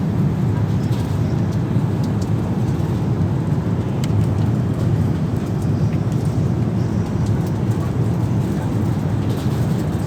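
Steady low rumble of airflow and engines inside the passenger cabin of an Airbus A380 in cruise flight.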